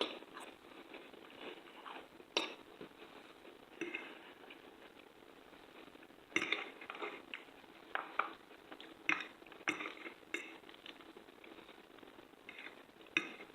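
Cutlery tapping and clinking against dishes, about ten short light knocks scattered over a quiet background.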